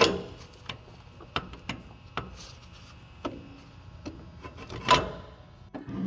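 Ratchet wrench loosening a 12 mm bolt on a metal radiator bracket: scattered clicks and knocks of the tool against metal, a sharp one at the start and the loudest about five seconds in.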